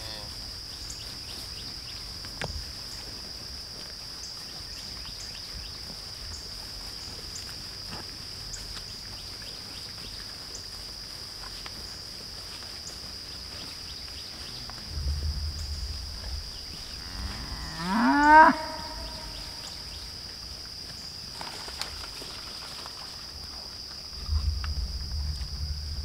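A cow moos once, about two-thirds of the way through, in a single call rising in pitch. It is heard over a steady high drone of insects. There is low rumbling noise twice, briefly.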